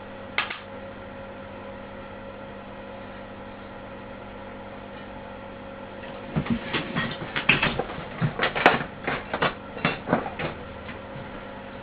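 Workbench handling noise: one knock, then after a few seconds a quick run of about a dozen clicks and knocks from tools and parts being set down and moved, over a steady electrical hum.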